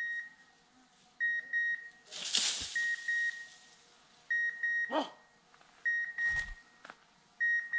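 Repeated electronic beeping: short, high beeps in groups of two or three, coming every second and a half or so. A dog gives one short bark about five seconds in.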